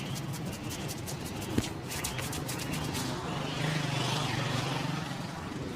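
Steady street traffic hum, with a fast run of light taps, about five a second, in the first two seconds and a single sharp click about one and a half seconds in.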